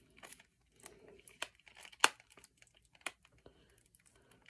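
Packaging on a CD box set crinkling and tearing as it is worked open by hand: irregular crackles and small clicks, with one sharp snap about two seconds in.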